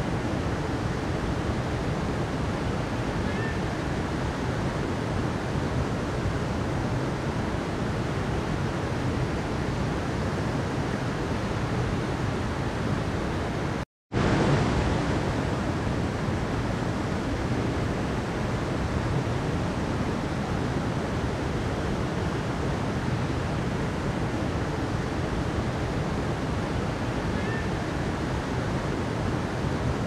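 Mountain river flowing, a steady rush of water. It cuts out to silence for a moment about halfway through, then carries on as before.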